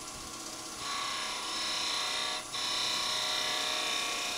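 A wood lathe running, with a small turning tool cutting into the spinning wooden finial. A steady hiss of the cut starts about a second in and breaks off briefly halfway. It is a light finishing cut taking the spindle down to its final thickness.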